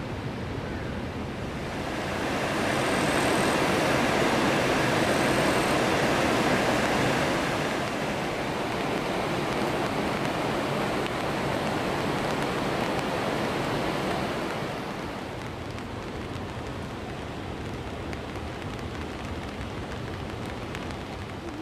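Steady rushing noise of falling water, swelling louder from about two seconds in and easing after about fifteen seconds.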